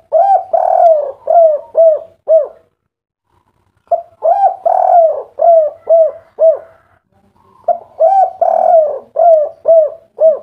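Spotted dove cooing its 'kuk 3' song: three phrases of about six to seven rounded, repeated coo notes each, with short pauses between the phrases.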